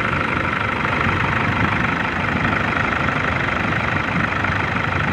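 Toyota Innova D4D diesel engine idling steadily just after a new timing belt has been fitted, running normally as a sign that the belt timing is correct.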